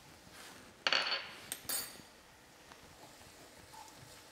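Kitchenware clinking: two sharp clinks about a second in, the second ringing briefly with a bright tone.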